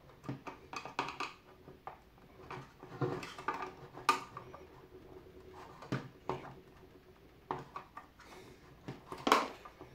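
Small flat screwdriver levering at a rubber button part in a coffee machine's black plastic housing: scattered clicks, scrapes and knocks of metal on plastic. The sharpest clicks come about four seconds in and again near nine seconds.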